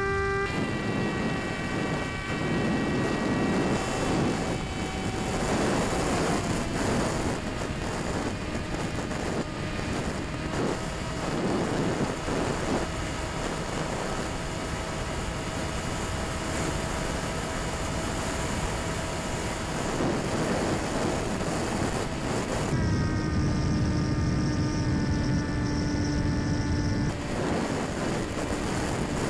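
Electric motor and propeller of a Quanum Observer FPV plane whining in flight, heard from its onboard camera, with wind rushing over the microphone. The motor note holds mostly steady, shifting in pitch with heavier wind buffeting for a few seconds near the end.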